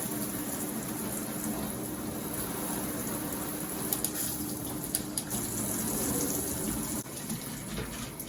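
New handheld high-pressure shower head spraying water steadily. About seven seconds in the spray sound changes abruptly and gets quieter, as the head is switched to another flow setting.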